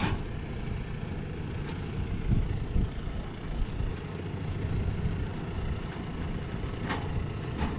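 Tractor engine running steadily with a low rumble while it pulls a grain trailer up to the silo. A brief sharp click is heard near the end.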